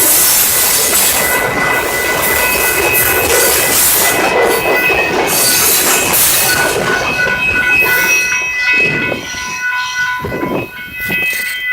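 A Union Pacific train rolling past close by: steady rail and wheel noise with thin, high wheel squeals that come and go. The sound eases briefly about nine seconds in, then picks up again.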